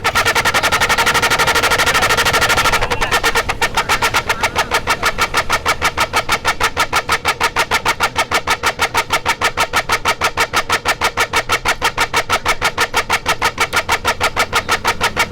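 A Royal Enfield Bullet fitted with a set of loud electric horns sounding in a rapid pulsing stutter, its exhaust beat turned into a honking rhythm. The pulses run very fast at first, then about three seconds in settle into a steady beat of about six a second.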